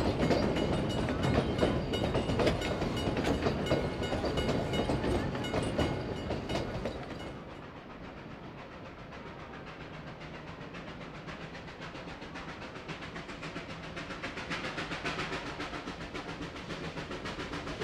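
Narrow-gauge steam train carriages rolling past, their wheels clicking over the rail joints, with a steady high tone over them. The level drops sharply about seven seconds in, and a steam locomotive is then heard working up the line in the distance, its rhythmic beat growing louder near the end.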